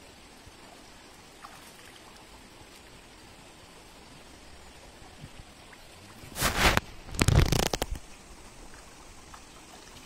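Shallow stream running softly, broken by two loud water splashes about six and seven seconds in as a person wading works with his hands and net in the water.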